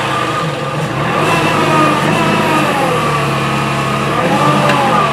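Kubota L3301 HST tractor's three-cylinder diesel engine working under load as the front loader pushes a large log. The engine note sags and rises, with a whine that rises and falls along with it.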